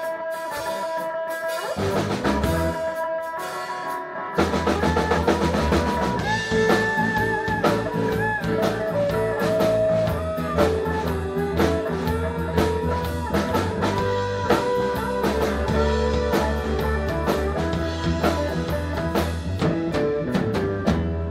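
Live blues band playing an instrumental passage with no singing: electric guitar over drum kit, bass guitar and keyboard. The whole band comes in fuller and louder about four seconds in.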